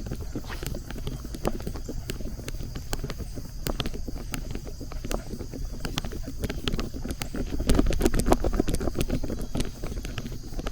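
Irregular crunching footsteps and scattered clicks on rough ground, growing louder and busier for a second or so about three quarters of the way through.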